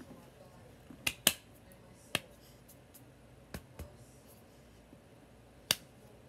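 Sharp, irregular slaps and claps of hands meeting while someone signs in sign language, about six in all, the loudest a little over a second in.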